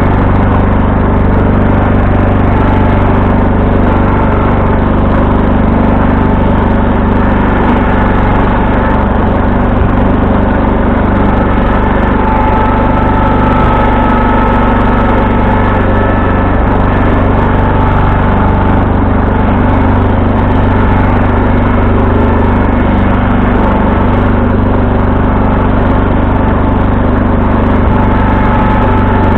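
1974 John Deere 140 H3 garden tractor's engine running steadily at an even speed.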